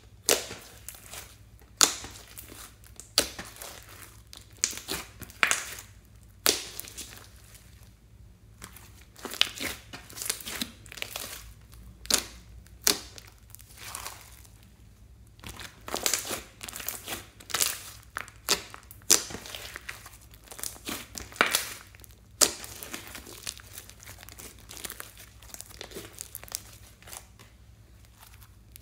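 A large batch of pink and green slime with small beads mixed in, pressed, stretched and folded by hand: irregular sharp wet pops and crackles, some loud, as the slime is squeezed and pulled.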